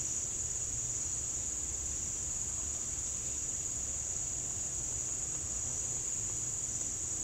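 Steady, high-pitched, unbroken insect chorus over a low rumble.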